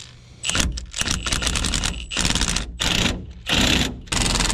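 Cordless impact wrench, driving a socket on a chrome extension, hammering a nut onto a steering-linkage bolt in a series of short stop-and-go bursts, the last running about a second.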